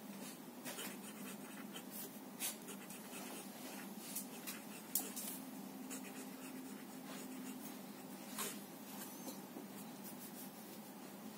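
Staedtler Initium Metallum fountain pen's nib scratching faintly across paper as a line of cursive is written, in short, irregular strokes.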